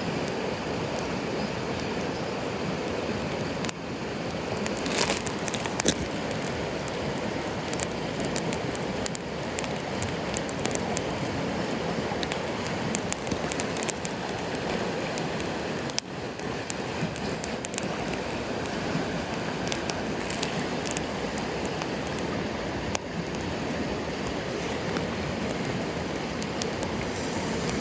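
A wood campfire crackling, with scattered sharp pops, over the steady rush of a mountain stream.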